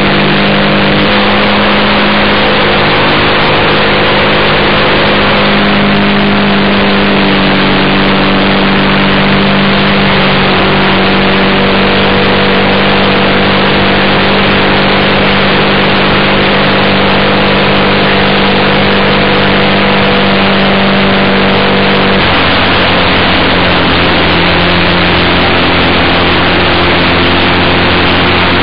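A quarter-scale RC Piper J3 Cub's motor and propeller running steadily in flight, heard loud and close from an onboard camera mic with heavy wind rush. About 22 seconds in the motor's pitch steps down a little and holds there.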